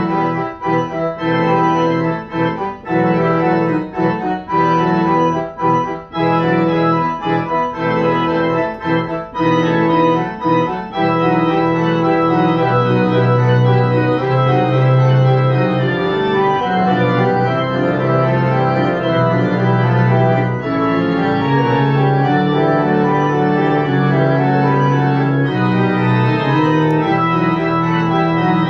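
Organ voice of a digital piano playing a piece in E minor in full chords. For about the first eleven seconds the chords are played detached with short breaks between them, then they are held and run together.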